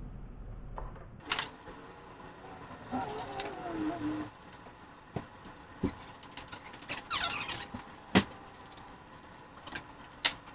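Handwork on a car door panel as Phillips screws are driven in with a screwdriver: scattered sharp clicks with short squeaky scraping between them.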